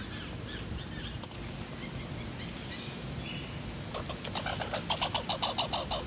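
Red squirrel giving its rattling chatter call, a rapid run of sharp pulses at about eight a second that starts about four seconds in. Before it there is only faint outdoor background with a few faint chirps.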